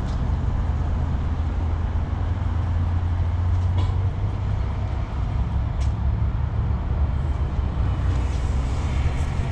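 Vehicle engine idling: a steady low rumble, with a few faint ticks on top.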